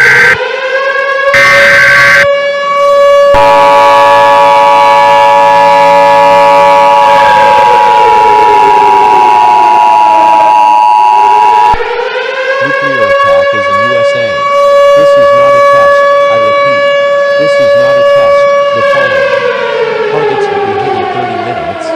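Civil defense siren wailing in two cycles: each time it rises, holds a steady pitch for several seconds, then slides back down. From about three seconds in to about twelve, the EAS two-tone attention signal plays steadily over the siren. Just before it comes in, near the start, there are short bursts of EAS data tones.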